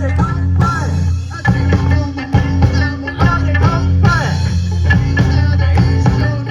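Live band playing an upbeat rock-style song with guitar and a steady low bass line.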